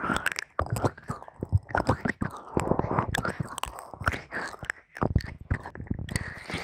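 Close-miked ASMR whispering, broken up by many small crisp clicks and crackles.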